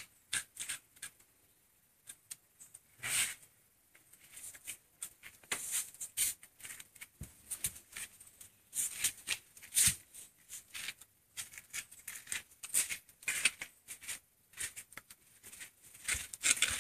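Puppy eating from a plastic bowl: a run of irregular quick clicks and crunches, getting busier after the first few seconds.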